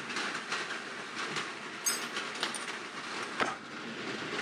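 Small steel machine parts handled and shifted on a wooden workbench: light metallic clicks and taps, with a brief high ring about two seconds in and a sharper knock near the end, over a steady background hiss.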